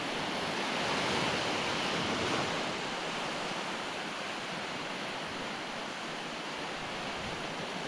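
Surf on a shallow beach: a steady wash of small waves, swelling a little about a second in.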